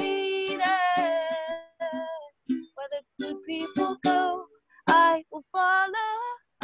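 A woman singing a song over plucked-string accompaniment in a small room. The audio breaks up, cutting out briefly several times.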